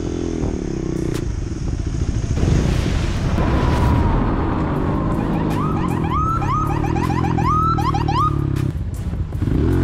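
Motorcycle engine running, joined from about a third of the way in by a police car siren whooping in short, repeated rising sweeps that stop shortly before the end.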